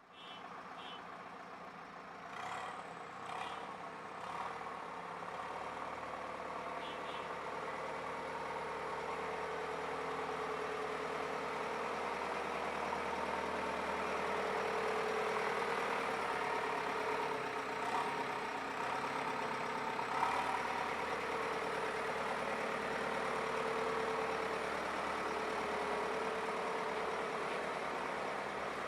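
JCB 3CX backhoe loader's four-cylinder diesel engine running steadily at idle, growing louder over the first half, with a few short clicks or knocks early on and twice later.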